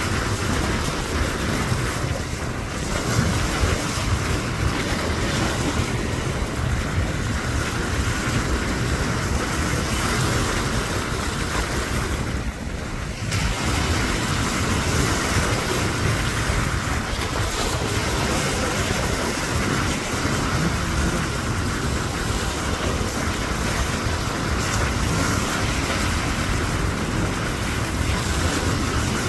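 Wind buffeting the microphone over the wash of choppy waves: a steady rushing noise with a heavy rumble, with a brief lull about halfway through.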